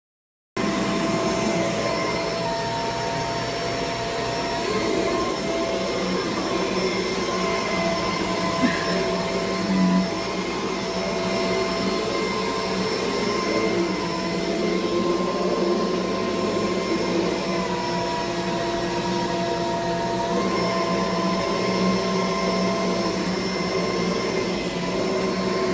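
Two-motor Kenmore Featherlite bagless upright vacuum running steadily, a motor whine over a rushing hiss of suction. It cuts in suddenly about half a second in.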